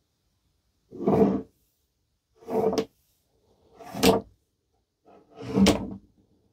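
Four American Lock padlocks set down one at a time on a wooden workbench: four short, loud knocks of metal on wood, about a second and a half apart.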